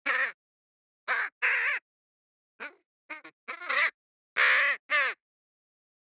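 Crow cawing: about eight short caws in groups of two or three, with silence between. The longest and loudest caw comes about four and a half seconds in.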